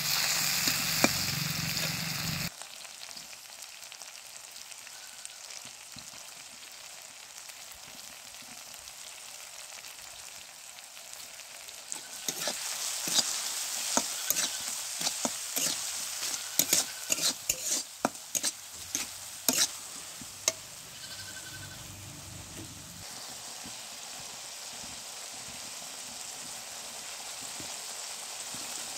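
Chopped onion and tomato sizzling in oil in a black iron kadhai, with a steel spatula scraping and knocking against the pan. The sizzle is loudest for the first couple of seconds, then drops to a softer hiss. From about twelve to twenty seconds in, quick sharp spatula clicks come thick and fast.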